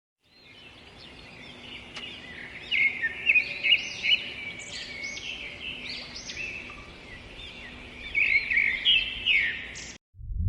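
Small birds chirping and twittering, many short overlapping calls over a faint background, louder in bursts, then cutting off suddenly near the end.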